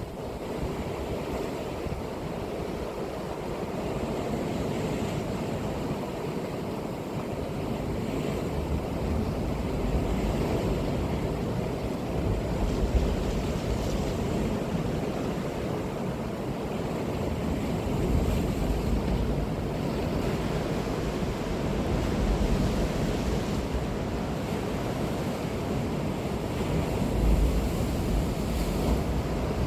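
Ocean waves breaking and washing on the shore in continuous surf, swelling and easing every few seconds, with low wind rumble on the microphone.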